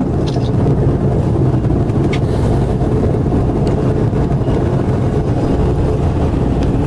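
SH-60 Seahawk helicopter hovering close by: a steady, loud rumble of rotor and turbine noise, heard through the glass of the deck-level catapult control station.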